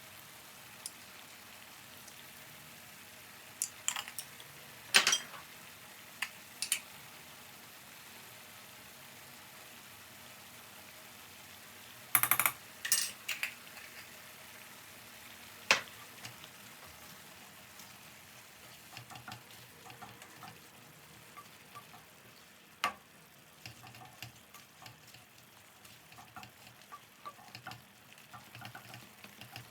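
Food sizzling steadily in a frying pan while being stirred, with occasional sharp knocks of a utensil against the pan and many small clicks later on.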